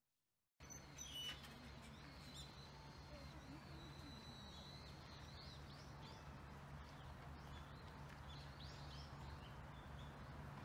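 Faint outdoor ambience of small birds calling: thin high chirps and whistles, some held and some rising and falling, over a steady low hum. It starts abruptly about half a second in, after silence.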